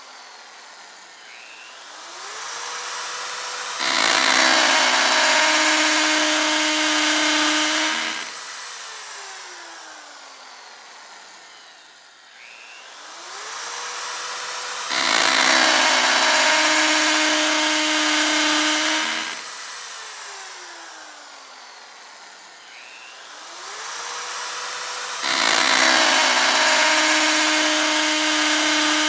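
Electric drill run up and driven into material for about four seconds, then winding down, three times about eleven seconds apart.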